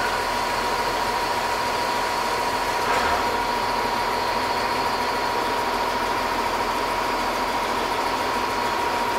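Caterpillar 972H wheel loader's Cat C13 diesel engine idling steadily, heard from inside the cab, with a steady high whine over the engine sound. A faint click about three seconds in.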